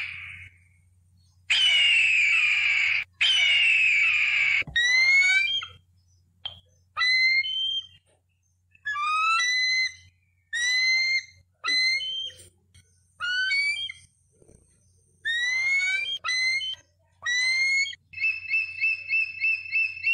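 Eagle calling: two long, harsh screams, then a string of short, rising, whistled notes in clusters, ending in a fast chattering run of repeated notes.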